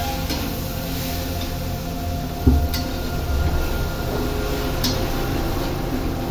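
Metal spatula stirring and scraping black chana around a metal pan, with a low thump about two and a half seconds in and two sharp clinks against the pan, over a steady low rumble.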